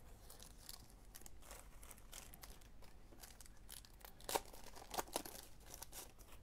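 Trading cards being handled and sorted: faint rustling and light crinkling, with a few sharper snaps a little over four seconds in and around five seconds in.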